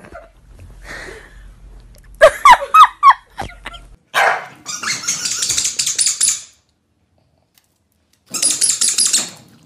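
Corgis barking and snarling at each other in harsh, noisy bursts: one stretch of about two seconds, then a pause, then a shorter burst near the end.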